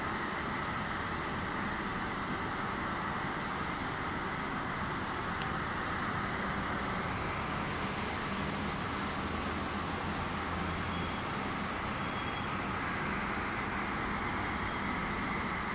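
Steady background noise, an even hiss with a low hum underneath, holding level throughout with no distinct events.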